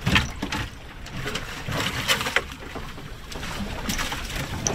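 A few knocks and clatters as lobsters and gear are handled in a fiberglass hatch on a small boat, over steady wind and water noise.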